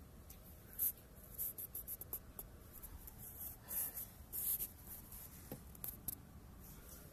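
Scratchy rubbing and scraping on the recording phone as it is handled, a string of short scrapes with the loudest a little under a second in and around the middle.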